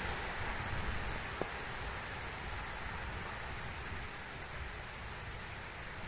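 Heavy rain falling in a steady hiss, with a brief click about a second and a half in.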